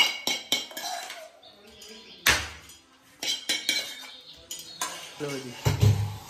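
Metal tongs scraping and knocking against a metal pan while serving noodles onto stainless steel plates: a quick run of clinks in the first second, one louder clank a little after two seconds, then scattered clinks.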